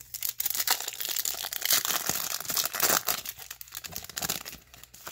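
Foil wrapper of a baseball card pack being torn open and crinkled in the hands: a dense crackling that thins out near the end.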